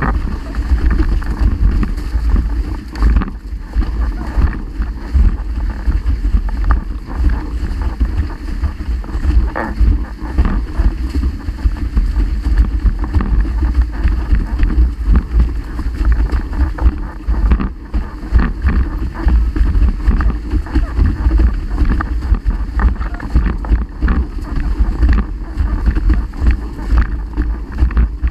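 Wind buffeting the microphone of a camera on a windsurf boom, over the steady rush and slap of water against the windsurf board as it sails fast across chop.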